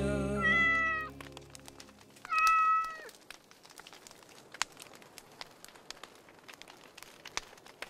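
Two meows: the first about half a second in, over the fading last chord of the song, and the second about two and a half seconds in, dropping in pitch at its end. After that there is only quiet room tone with a few faint clicks.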